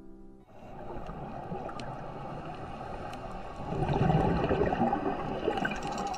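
Underwater ambience picked up by a diving camera: an even rushing of water with scattered faint clicks. About four seconds in it turns louder and rougher, with a low bubbling rumble.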